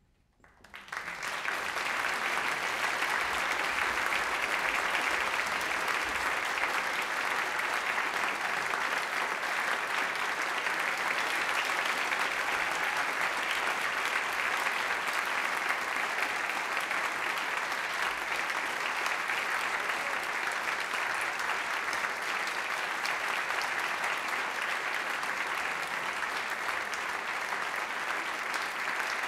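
Audience applauding, breaking out about half a second in and swelling within a second or so into steady, dense clapping.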